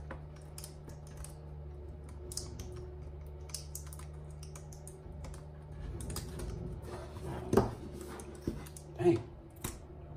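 Light clicks and taps of hands handling a cardboard screen-protector box and picking at its seal tabs, with a couple of louder knocks near the end, over a steady low hum.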